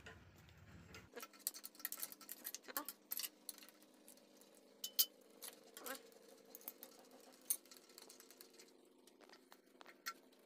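Faint, irregular metallic clicks and taps of a wrench and hands working on the fittings of an Isuzu diesel engine's high-pressure fuel injection pipes as they are undone.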